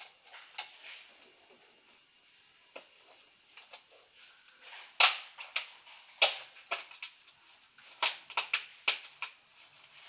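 Irregular sharp clicks and taps from hand work. The loudest come about five and six seconds in, followed by a quick run of them near the end.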